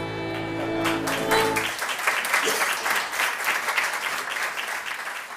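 Music with held notes stops about a second and a half in, and a crowd breaks into applause that fades out near the end.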